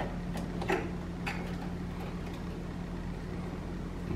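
A few light clicks and knocks in the first second and a half as a BMW secondary air pump is worked loose and lifted out of its mount by hand, over a steady low hum.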